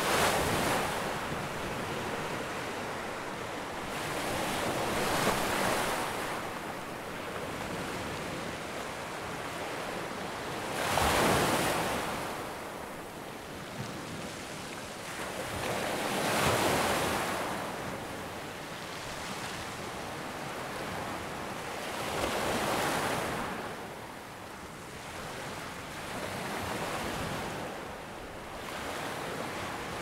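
Ocean surf: waves breaking and washing up the shore one after another, the sound swelling and easing about every five to six seconds.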